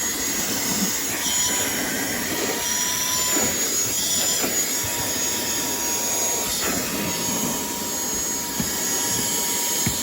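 Small handheld cordless vacuum running steadily with a high whine and a rush of air; its pitch shifts slightly now and then as the nozzle is worked over surfaces. A few light knocks come through near the end.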